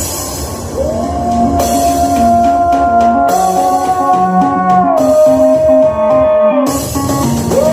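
Instrumental music with drums and guitar under a long held lead note that glides up into place and then steps between a few pitches.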